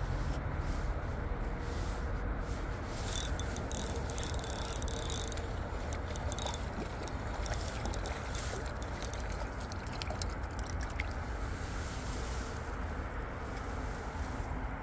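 Steady low outdoor rumble, with the fine clicking of a small Shimano 1000-size spinning reel being cranked to bring in a hooked fish.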